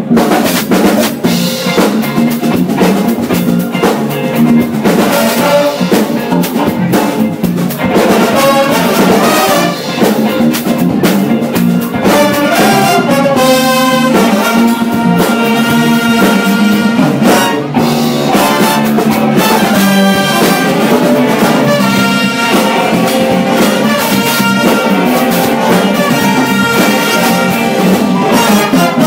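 Jazz big band playing: a brass section of trumpets and trombones over a drum kit, continuous and loud.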